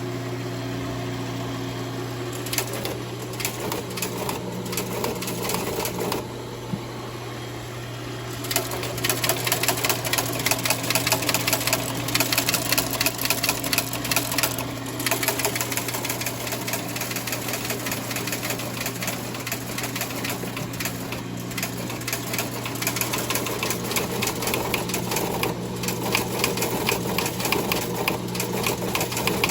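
Teletype reperforator rapidly clattering as it punches incoming RTTY onto paper tape, over the steady hum of the teleprinter motor. The clatter thins for a couple of seconds about six seconds in, then resumes denser.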